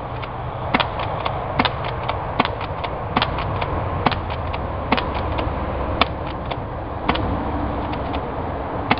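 UTG M3 tri-shot airsoft shotgun fired over and over, a sharp cluster of clicks about every second from the shot and the BBs striking a plastic disc, until the magazine runs empty. A steady low rumble runs underneath.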